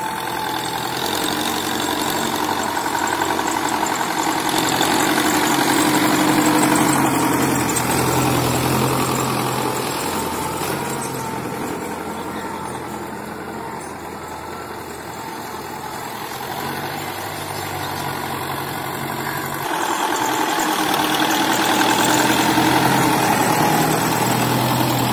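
Belarus 510 tractor's diesel engine running steadily while pulling a tine cultivator through a field. It grows louder and fainter as the tractor moves nearer and farther, loudest about a quarter of the way in and again near the end.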